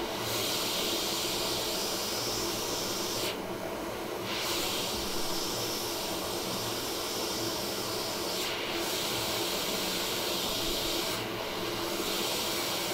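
Hot-air rework station blowing a steady hiss while a small diode is reflowed off or onto an iPhone logic board. The hiss drops away briefly three times, about three, eight and eleven seconds in.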